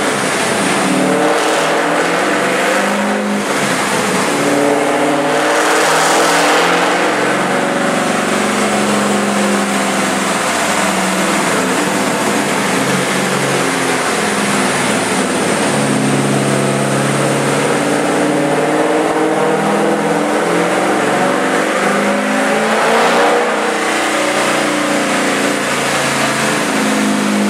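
Forged LS1 V8 with long-tube headers running under load on a chassis dyno, its rear tyre turning on the rollers. The engine note is held steady and loud, rising and easing off a little several times, as it would during part-throttle tuning rather than a full-throttle pull.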